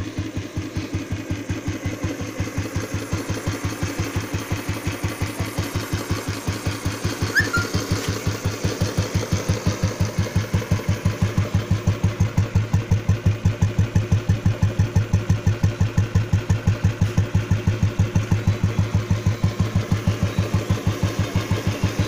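Royal Enfield Bullet 350's single-cylinder four-stroke engine idling, with an even, steady exhaust thump, a little louder from about eight seconds in.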